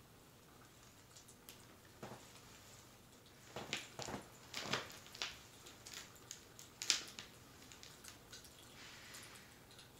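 Faint fireplace crackling with scattered small pops. From about three and a half to five seconds in there is a brief run of louder cloth rustling as a blanket and book are shifted, with a sharper rustle or pop near seven seconds.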